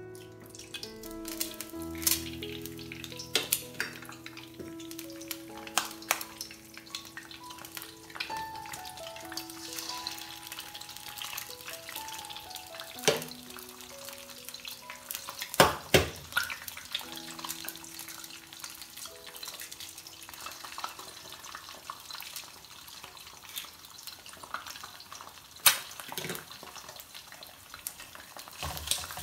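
Eggs sizzling as they fry in hot oil in a nonstick wok, with a few sharp knocks as more eggs are cracked into it.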